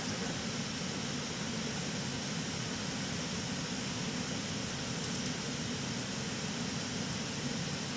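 Steady cockpit noise of an airliner in flight: an even rushing hiss of airflow and air conditioning over a low rumble, with no change in level.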